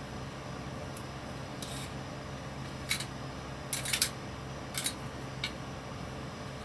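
Small screwdriver working the tiny screws of a drone camera board: a few short, sharp metallic clicks and scrapes, the loudest cluster about four seconds in.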